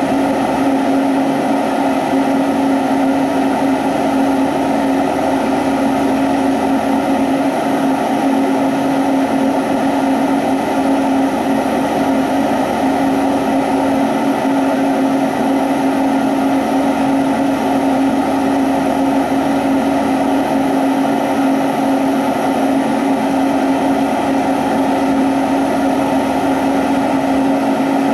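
Steady, unchanging drone at a glass lampworking torch bench: the rushing of the torch flame over a constant low hum.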